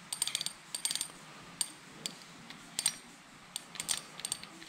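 Steel gears and shafts of a Suzuki RGV250 cassette gearbox clicking and clinking as they are handled: a quick run of light metallic clicks with a short ring in the first second, then scattered single clicks.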